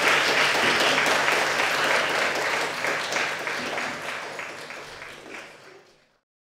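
Audience applauding, the clapping fading away and ending about six seconds in.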